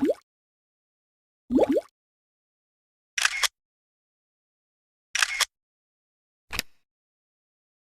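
A string of short cartoon sound effects with silence between them. First come two rising 'bloop' pops, then two brief hissy swishes about two seconds apart, then a short click.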